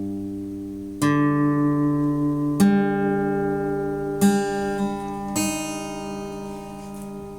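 Guitar chords strummed one at a time and left to ring out, four in all, each struck roughly a second and a half after the last and fading slowly.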